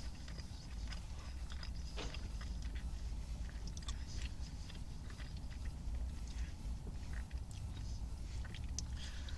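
Someone chewing a mouthful of burger, with small scattered clicks and crackles, over a steady low rumble.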